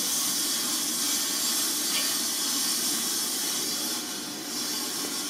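Steady hiss of background noise, even throughout with no distinct events.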